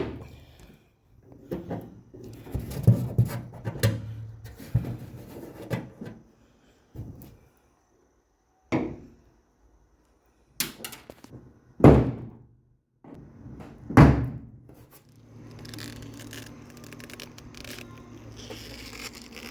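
Scattered thunks and knocks on an aluminum boat seat as rivets with their heads ground off are worked loose, the two loudest knocks close together near the middle, with quieter handling noise between.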